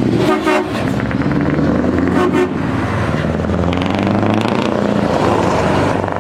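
Truck engine running steadily, with short horn toots about half a second and two seconds in.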